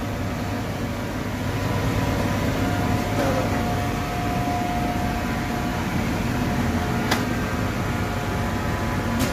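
Steady mechanical hum of commercial kitchen machinery, with a thin steady tone for a few seconds in the middle and one sharp click about seven seconds in.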